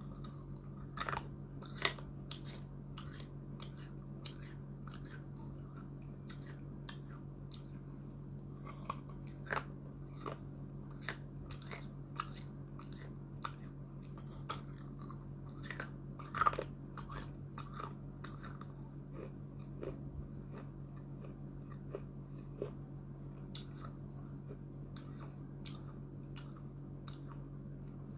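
Someone biting and chewing small baked clay pots: a string of sharp, dry, irregular crunches, a few of them loud, over a steady low hum.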